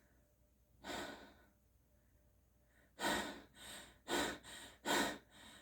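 A person's sharp breaths. There is one inhale about a second in, then from about three seconds in a quick run of gasping breaths, three loud ones each followed by a softer one: the build-up to a sneeze.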